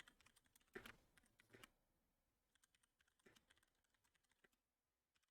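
Faint computer keyboard typing: scattered soft key clicks, a few louder taps in the first two seconds and a small cluster past the middle.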